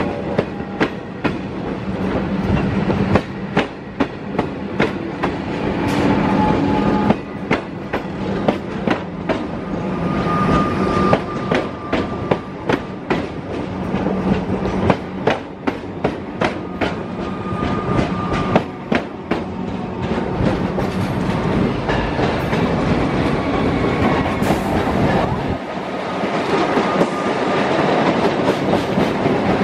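Melbourne Metro suburban electric trains passing close by: a continuous rumble with a steady low hum, and the wheels clacking over rail joints in repeated clusters (clickety-clack). The sound changes about three-quarters of the way through as another train takes over.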